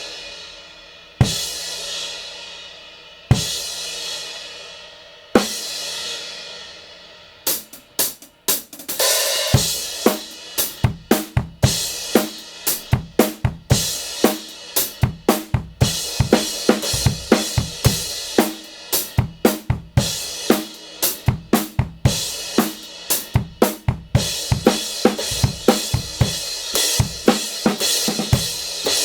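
Kingdo Artist Dark 16-inch crash cymbal struck on its own three times, about two seconds apart, each strike left to ring and fade. About a quarter of the way in a drum kit groove starts, with the crash played over snare, bass drum and hi-hat.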